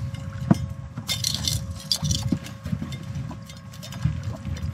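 Knocks and rustling splashes of a landing net and a freshly netted fish being handled aboard a fishing boat, with a sharp knock about half a second in and hissy bursts a second and two seconds in. Under them runs the boat motor's low steady rumble and a faint steady whine.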